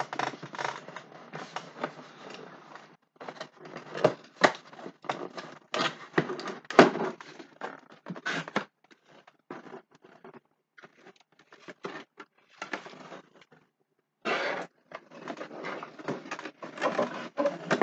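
Cardboard box and packaging being handled and opened: irregular scraping and rustling with a few sharp knocks, the loudest about four and a half and seven seconds in.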